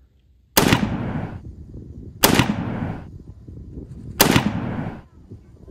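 Artillery or rocket-fire sound effect: three loud blasts about two seconds apart, each a sharp crack with a fading rumble.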